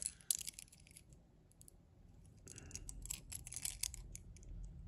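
Small clicks and scratches of a toy truck's loose die-cast base and its little wheels being turned over in the fingers. A cluster comes in the first half second, then a quiet stretch, then more clicking from about two and a half to four seconds.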